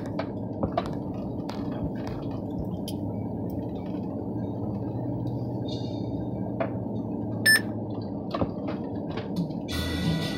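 Steady road and engine noise heard inside a moving car's cabin, a low rumble with a few faint clicks. About seven and a half seconds in there is one short, high beep.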